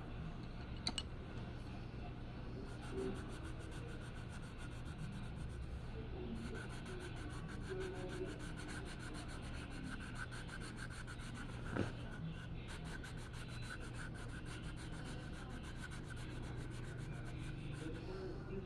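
Steady rubbing strokes of an art tool across a drawing or painting surface, over a low steady hum, with one sharp tap about twelve seconds in.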